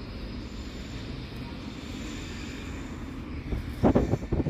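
Steady low rumble of traffic on a city street, with a quick cluster of short knocks near the end.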